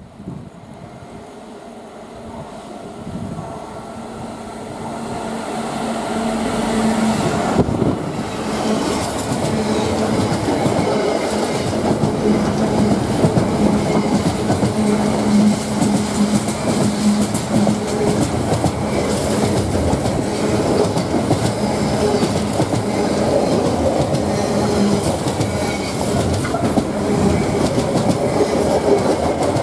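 An intermodal container freight train passes through a station without stopping. It grows louder over the first several seconds as the locomotive approaches, then the wagons go by in a steady loud clatter of wheels over the rail joints, with a constant hum beneath.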